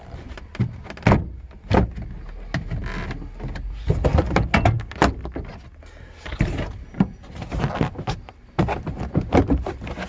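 Hard plastic interior trim panel in the rear of a Toyota FJ Cruiser being pulled and worked loose from its clips by hand: irregular clicks, knocks and rustling of plastic, with the loudest knocks about a second in and around four to five seconds.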